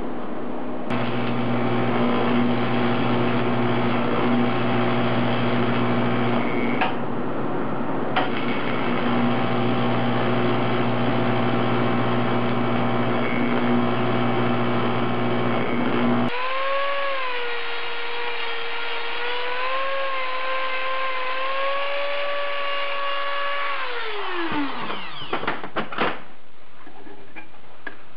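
TIG welder arc buzzing steadily while it welds an aluminium bracket. The buzz stops abruptly about 16 seconds in. A machine whine follows; it slides down in pitch and dies away about 25 seconds in.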